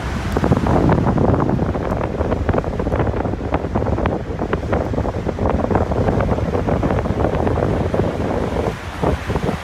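Strong wind buffeting the microphone over surf breaking on the shore of a rough sea. It comes as a dense, gusting rumble with crackles that eases slightly near the end.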